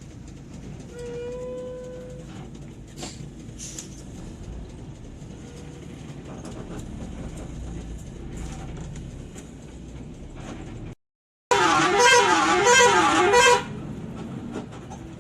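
Steady traffic rumble with a short single-note horn toot about a second in. Late on, after a brief dropout, an Eka Cepat bus's telolet horn sounds loudly for about two seconds, a warbling multi-tone call rising and falling about three times.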